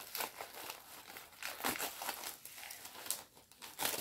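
Plastic packaging crinkling as it is handled, in irregular crackles.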